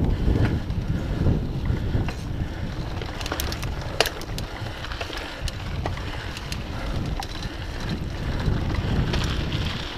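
Mountain bike riding over a dirt singletrack: wind buffeting the handlebar-mounted camera's microphone over the rumble of knobby tyres on dirt, with scattered clicks and rattles from the bike, one sharp click about four seconds in.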